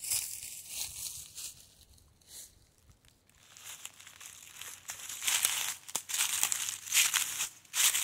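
Footsteps crunching through dry leaf litter, faint at first, then louder and closer together from about five seconds in.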